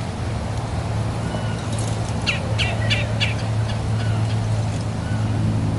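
A steady low motor hum, with a bird giving four quick, sharp chirps a little over two seconds in.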